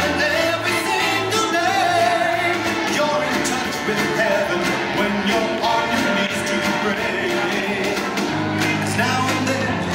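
A song with singing over a steady bass line.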